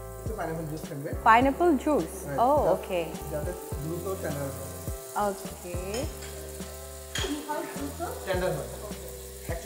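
Beef rolls sizzling as they fry in butter and olive oil with garlic in a nonstick frying pan. Background music with sliding melodic lines plays over the sizzle.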